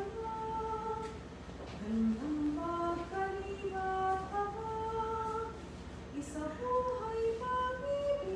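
A woman singing a slow closing hymn solo into a microphone, unaccompanied, moving from one held note to the next.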